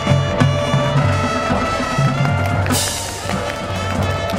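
High school marching band playing, with sustained brass and woodwind chords over pulsing bass drums and drumline. A bright cymbal crash rings out just past the middle and fades.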